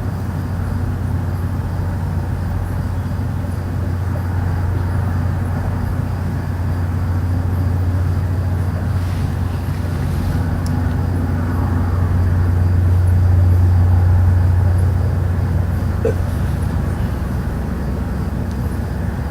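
Steady, deep droning hum, outdoors, that grows louder a little past the middle and then eases off. It is the unexplained low noise reported in Stockton, of unknown source.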